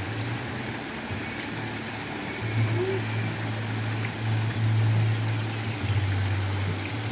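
Waterfall rushing with a steady hiss, under a low rumble that swells and fades several times.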